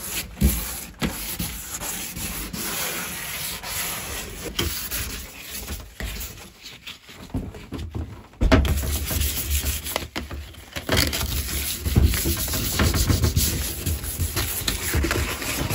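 Hand-sanding plastic bathroom fittings with fine sandpaper on a sponge block: repeated scratchy rubbing strokes that scuff the surface to key it for paint. The rubbing eases off about six seconds in and comes back louder about eight seconds in.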